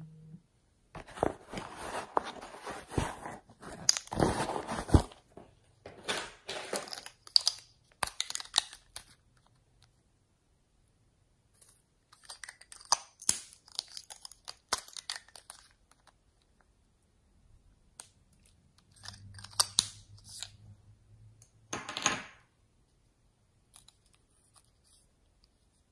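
Slime being handled by hand: four spells of squishing and clicking, with short silent gaps between them.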